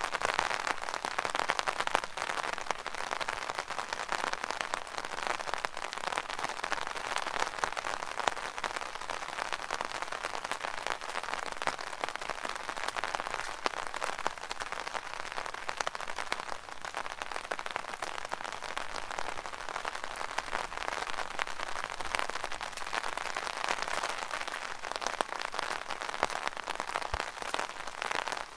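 Rain falling on an umbrella canopy: a dense, steady patter of many drops.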